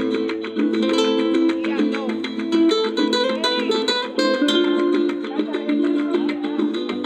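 Acoustic guitar playing a rumba flamenca in quick plucked notes.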